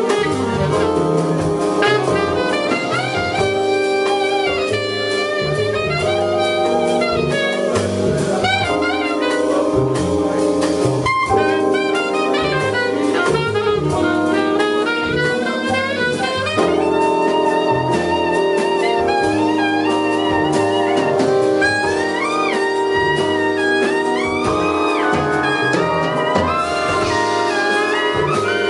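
Live big band jazz: a saxophone solo winding and bending over held brass chords, with the drum kit keeping time underneath.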